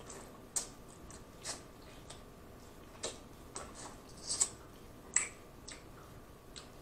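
Scattered quiet, wet clicks and smacks of a mouth chewing snow crab meat, irregular and spaced about half a second to a second apart.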